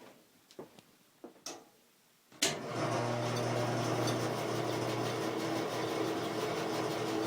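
A few light clicks, then about two and a half seconds in a 1962 General 490 bandsaw, with its 3/4 horsepower motor, is switched on with a sharp click and runs at a steady hum on its first run with a new blade.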